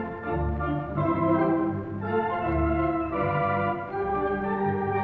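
Standaart 3/15 theatre pipe organ playing held chords over a pulsing bass line, heard from a 1934 78 rpm gramophone recording with a muffled sound that has no treble.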